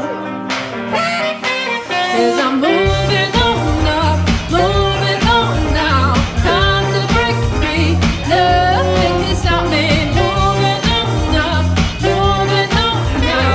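Band music: a sparse opening, then bass and drums come in about three seconds in under a melody line that bends in pitch.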